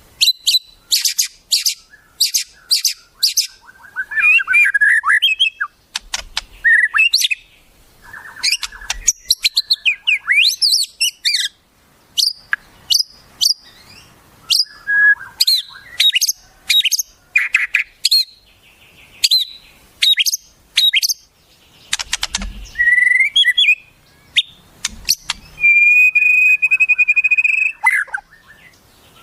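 Wild songbird song from a murai training recording: quick runs of sharp chirps and clicks mixed with varied gliding whistled phrases. Near the end comes one long, steady whistled note.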